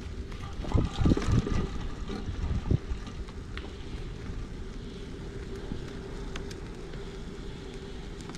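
Bicycle rolling over a dirt barn floor, with low wind rumble on the handlebar-mounted microphone and a steady hum. Between about one and three seconds in, a cluster of loud knocks and rattles sounds as the bike jolts over the ground.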